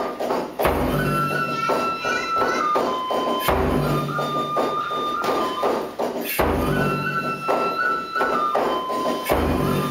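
Kagura accompaniment: a flute plays a held melody that steps between notes, over a drum that gives a deep stroke about every three seconds with quicker taps between.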